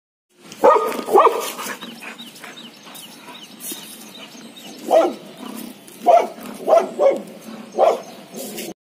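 Labrador retriever barking at a monkey: two barks about a second in, then a run of five barks later on. The sound cuts off suddenly near the end.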